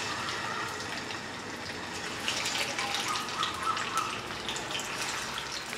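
Rice cutlets sizzling and crackling in hot oil in a frying pan as they are laid in for shallow frying. The crackle grows busier about two seconds in, as a second cutlet goes into the oil.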